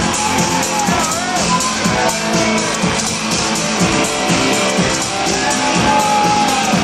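Live rock band playing, with electric guitar prominent, heard through the hall's sound system.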